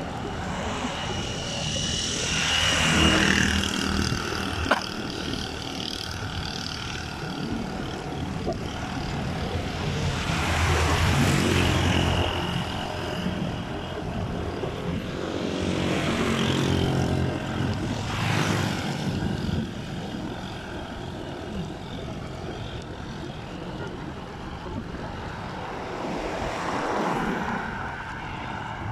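Motor vehicles passing on the road alongside, about five going by one after another, each swelling and fading, some with an audible engine note, over a steady background rush; a single sharp click about five seconds in.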